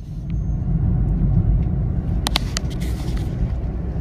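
Škoda Fabia 1.2 HTP three-cylinder petrol engine and road noise heard from inside the cabin as the car pulls away under acceleration: a low, steady rumble. A couple of sharp clicks sound a little past halfway.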